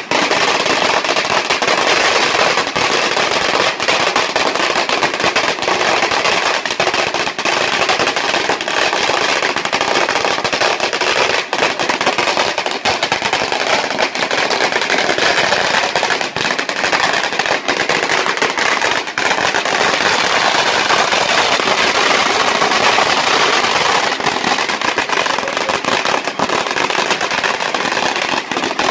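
A 100,000-firecracker belt of red-paper firecrackers burning down, a dense, unbroken string of rapid bangs that runs on without a pause.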